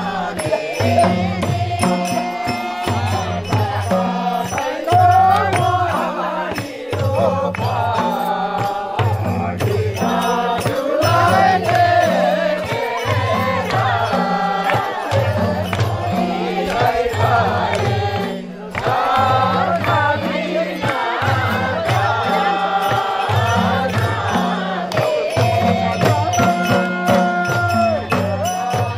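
Nepali folk music: madal hand drums beating a steady, repeating rhythm under group chant-like singing.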